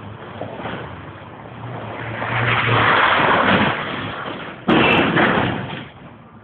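Rally car driving past at speed, its noise building and fading, then a sudden loud burst of sound about halfway through that dies away about a second later.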